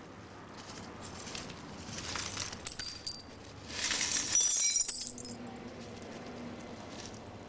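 A vacuum flask being unscrewed and opened: a few sharp clicks of the screw cap, then a glassy clinking rattle for about a second, around four seconds in.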